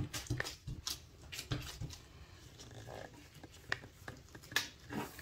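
Gloved hands patting and pressing soft pastry dough flat on a glass cutting board, then folding it up: faint soft pats and rustles, with a few sharper taps near the end.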